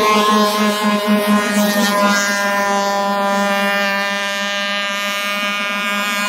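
Motor of a 45-inch RC Scarab model speedboat running at full speed, a steady buzzing drone over the hiss of spray, growing a little fainter about halfway through as the boat runs away.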